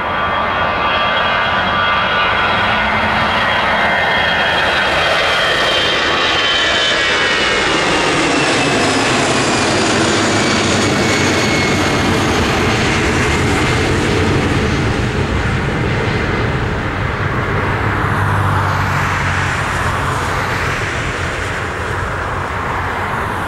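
Airbus A320's CFM56 jet engines at takeoff thrust as the airliner lifts off and climbs past: a loud steady roar with a high fan whine that falls in pitch as it goes by, then a deeper rumble as it climbs away.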